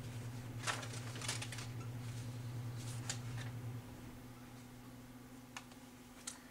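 Dry-erase marker writing on a whiteboard: short scratchy strokes in clusters about a second in and around three seconds, with one more stroke near the end, over a steady low hum that drops off about four seconds in.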